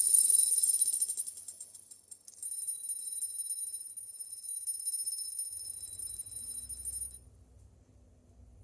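Stainless steel DJG Whisper Spin linkage fidget spinner spinning, giving a high metallic jingling ring. The ring fades out, starts again about two seconds in after a fresh spin, and stops abruptly about seven seconds in.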